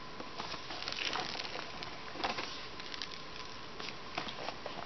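Cardboard knife box handled and turned in the hand: irregular rustling and scraping with light clicks and taps, over a steady hiss with a faint high tone.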